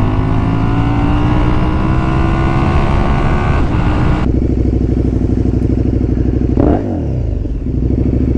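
Motorcycle engine pulling at road speed, its note rising slowly, with wind rush. After an abrupt cut a little past four seconds in, the engine runs at low revs with a pulsing note and gives a short rev that rises and falls near the end.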